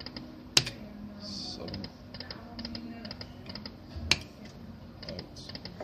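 Poker machine being played: the spin button gives a sharp click about half a second in and again about four seconds in, between runs of light, quick electronic ticking from the machine as the reels spin and stop.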